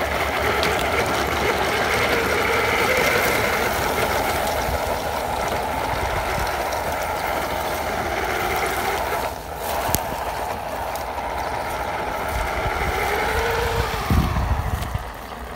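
Electric drive motor and gearbox of a radio-controlled scale crawler whining steadily as it pulls a loaded trailer, with a short dip about two-thirds of the way through. Near the end the whine drops in pitch and a burst of splashing comes as the truck drives into muddy water.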